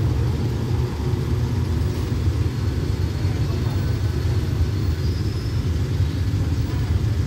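Steady low rumble of a departing passenger train pulling away along the track.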